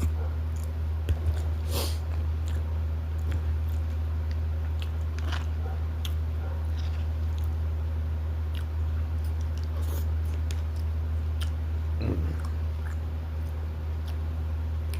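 A person chewing and biting food, with scattered short wet clicks and smacks, over a steady low hum.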